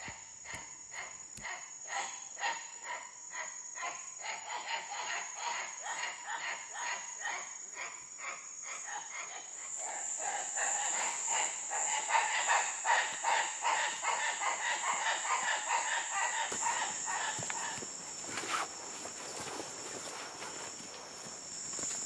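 Rainforest insect chorus: a steady high-pitched drone with a rapid pulsing call over it, a few pulses a second, swelling louder past the middle and thinning out near the end.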